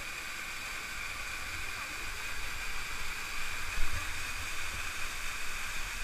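Small waterfall pouring onto rocks and into a shallow pool: a steady rush of falling water. A brief thump about four seconds in.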